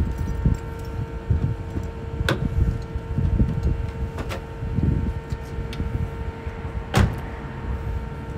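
Car door being worked: a few clicks as it is opened and someone climbs in, then the door shutting with a sharp thud about seven seconds in. A steady hum and gusty low rumble run underneath.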